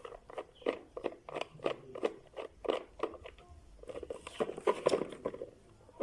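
Irregular sharp clicks and taps, about two or three a second, from small parts and tools being handled while an electric mixer is worked on, with a denser run of clicks near the end.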